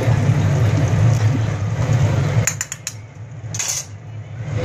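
Pan of sopas boiling on the stove with a steady low rumble. About two and a half seconds in come a few quick clinks of the metal ladle against the pan, and the rumble drops away for a moment before returning.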